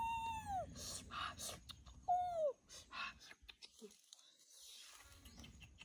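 An animal's drawn-out whining calls: one long call that rises and then falls, ending just after the start, and a shorter falling call about two seconds in, with a few faint crackles between them.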